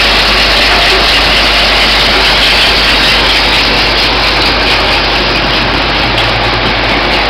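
Cap feeder running steadily, a dense continuous rattle of caps moving through the bowl and along its outer track over a low machine hum.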